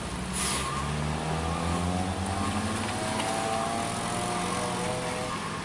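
Heavy diesel truck engine labouring under load, climbing a steep wet hairpin, its note rising slowly over the first couple of seconds.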